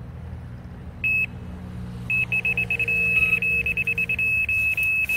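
Fox RX carp bite alarm signalling a run: one short beep about a second in, then from about two seconds in a rapid, almost continuous stream of high beeps on one pitch as a carp takes line.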